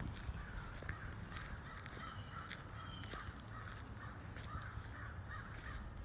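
Crows cawing repeatedly, many short harsh calls over a low steady rumble.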